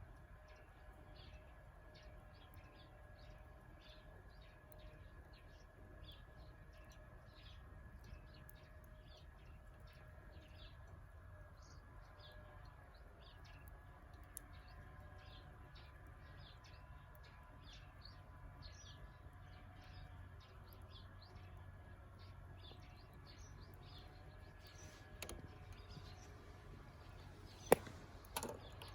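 Small birds chirping in quick, short notes throughout, faint over a low steady rumble. A few sharp knocks near the end, one of them much louder than everything else.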